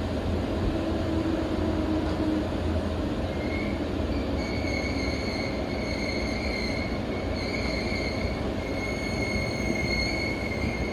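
Seibu Chichibu Line commuter train heard from inside the passenger car while running through a long tunnel: a steady running rumble. About three and a half seconds in, a high, steady metallic wheel squeal joins it and carries on, wavering slightly.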